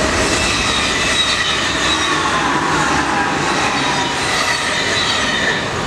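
NS ICM 'Koploper' electric intercity train passing close at speed: a loud, steady rush of wheels on rails, with a faint whine that drifts down in pitch as it goes by.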